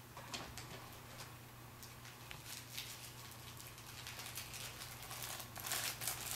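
Thin plastic exfoliating-sock bootie crinkling as it is unfolded and handled: faint scattered crackles at first, becoming denser and louder near the end.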